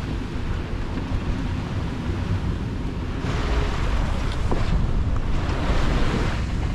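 Strong wind buffeting the microphone over the rush of waves and spray along the hull of a sailboat heeling hard in choppy seas. The rushing grows louder about three seconds in.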